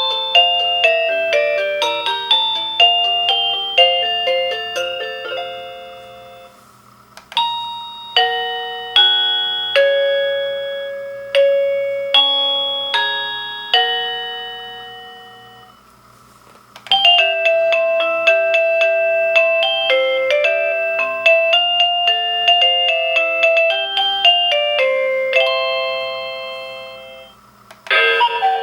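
Avantek D-3B wireless doorbell receiver playing one electronic chime melody after another, each note striking and fading. One tune ends about six seconds in, new tunes start about seven and seventeen seconds in, and another begins near the end.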